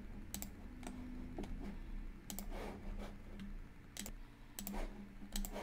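Irregular clicks of a computer mouse as objects are selected in software, about ten spread unevenly, over a faint low hum.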